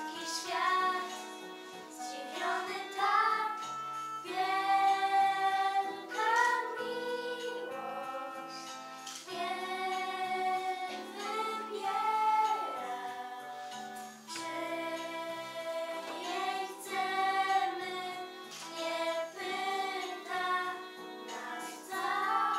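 A small group of young girls singing a song together, with long held notes over a steady instrumental accompaniment.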